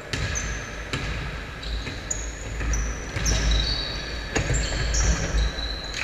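A basketball bouncing several times on a gym floor, with many short, high sneaker squeaks and the thud of players running.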